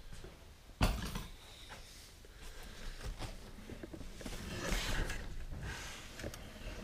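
A steel bicycle spoke being snipped with cutters: one sharp snap about a second in, followed by rustling of the nylon umbrella canopy as the spoke is handled against a rib.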